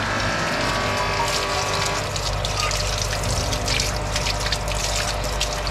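Water sloshing and splashing as cast aluminium pedal enclosures hung on copper wire are swished through a tub of soapy wash water, cleaning them before plating. Sharper splashes come from about two seconds in, over a steady low hum.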